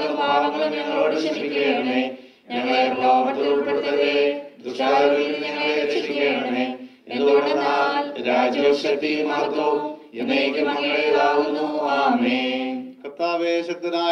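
A group of voices chanting a Malayalam liturgical prayer in unison without instruments, in phrases of about two seconds with a short break for breath between each.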